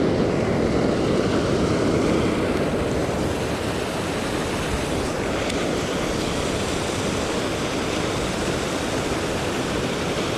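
Steady rushing of fast-flowing floodwater in a swollen river, an even noise without breaks.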